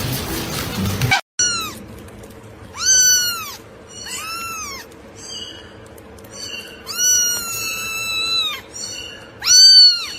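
A cat meowing about five times, high-pitched calls that rise and fall, one of them held for about a second and a half, the last the loudest. Before the first meow, a noisy stretch cuts off abruptly about a second in.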